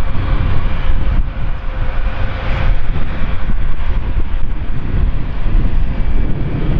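Jet airliner's engines running loud and steady, a dense rumble strongest in the low end.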